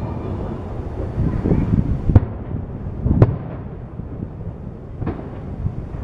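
Aerial fireworks shells bursting: three sharp bangs a second or two apart, the second and third a little more than a second and about two seconds after the first, over a continuous low rumble between them.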